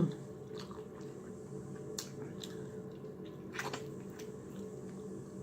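Close-miked wet chewing and lip-smacking of food, a few sharp clicks and squelches scattered through, over a steady low hum.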